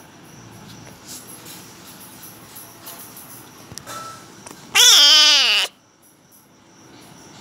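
A young tabby cat meows once, about halfway through: a single wavering call about a second long that drops in pitch at the end.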